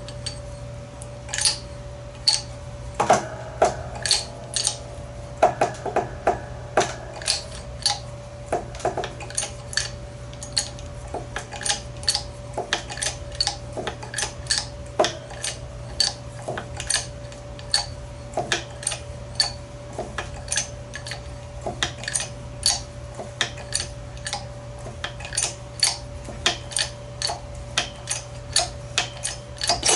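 Hydraulic bottle jack in a shop press being pumped by its handle, giving a sharp metallic click with each stroke, about two a second, over a steady hum. It is pushing the outer sleeve off a Jacobs ball-bearing drill chuck.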